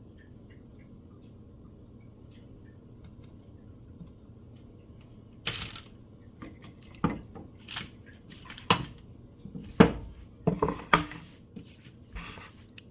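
Kitchen items being handled and set down on a wooden table: a metal can of black olives and a wooden cutting board. A series of sharp knocks and short clatters starts about five seconds in, with the loudest knock a little after the middle.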